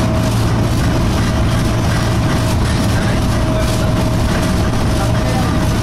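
Cabin noise inside a moving Alexander Dennis Enviro200 single-deck bus: a steady low engine and road drone with a constant mid-pitched tone running through it, the bus's annoying vibration sound.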